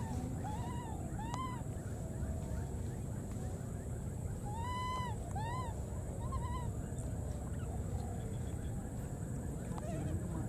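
Baby monkeys crying: short, high, rising-and-falling calls, three in the first second and a half and three more about five seconds in, over a steady low rumble.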